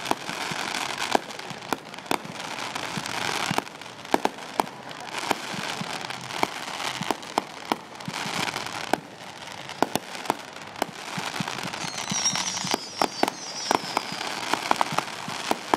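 Fireworks display: continuous crackling with many sharp bangs and pops, and a high falling whistle from a whistling firework about twelve seconds in.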